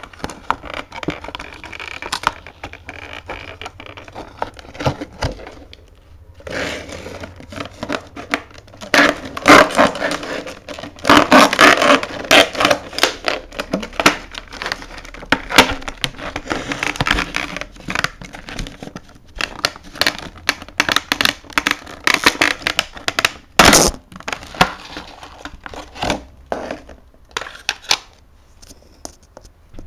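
Hands handling a clear plastic display case: irregular crinkling, scraping and clicking of the plastic, busiest in the middle, with one sharp knock about three quarters of the way through.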